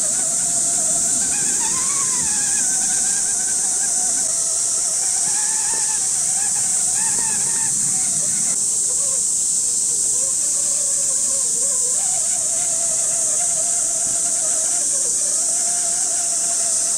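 Electric motor and gear whine of a radio-controlled scale crawler truck driving over forest ground, its pitch rising and falling with the throttle. A steady, loud high-pitched insect drone runs underneath.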